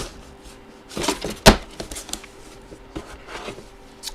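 Cardboard box and packaging being handled, rustling and sliding, with a few sharp knocks and clicks; the loudest comes about one and a half seconds in. A faint steady hum runs underneath.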